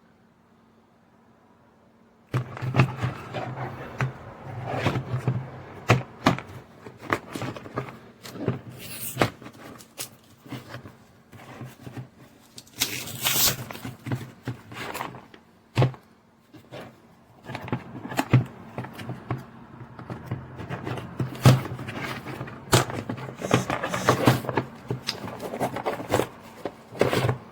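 Objects being handled: an irregular run of clicks, knocks and rustling that starts about two seconds in, over a steady low hum.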